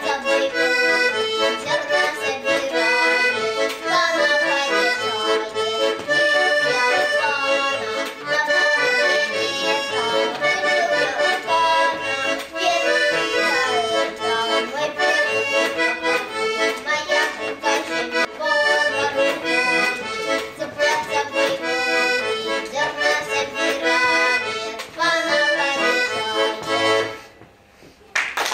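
Accordion playing a lively folk tune, with chords and steady bass notes under the melody. The music stops suddenly near the end and applause begins.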